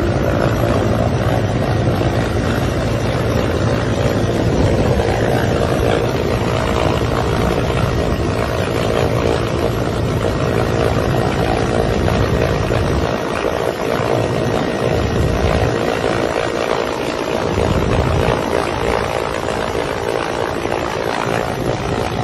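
Rescue helicopter hovering, heard from aboard at the open hoist door: a loud, steady rotor and engine noise with a constant drone and rushing air throughout.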